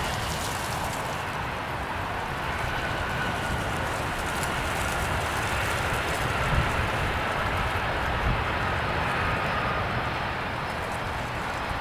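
Airbus A320 rolling out after touchdown, its IAE V2500 turbofans running with a faint whine that slowly falls in pitch, over a steady rush of jet noise. Wind buffets the microphone with low rumbling gusts.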